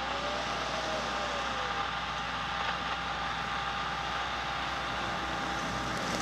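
Subaru car engine running steadily at low speed while the car crawls along a muddy dirt trail, with a steady hiss throughout.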